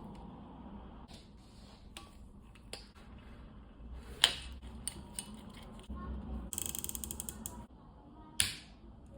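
Handling and unwrapping of a new pro scooter deck and its packaging: scattered clicks and taps, two sharp knocks, and about a second of rapid ratchet-like clicking about two-thirds of the way through.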